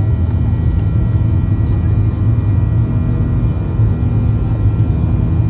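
Aircraft cabin noise in flight: a steady low rumble from the engines and airflow, with a few steady whining tones above it.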